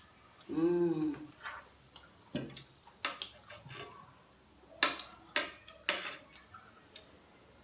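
Cutlery clinking against a plate while eating: about half a dozen sharp, irregular clicks. A short vocal sound comes about a second in.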